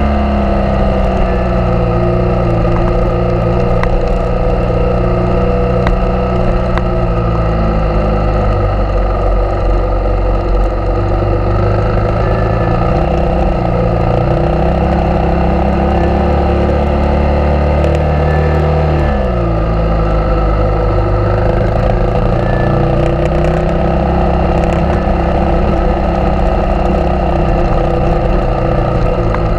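Suzuki DR650's single-cylinder four-stroke engine being ridden hard, its pitch rising and falling with throttle and gear changes, dropping sharply a little past halfway before climbing again.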